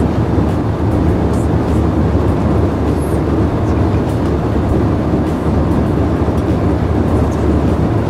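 Airbus A320 cabin noise: a steady deep rumble with a hiss of engines and airflow over it.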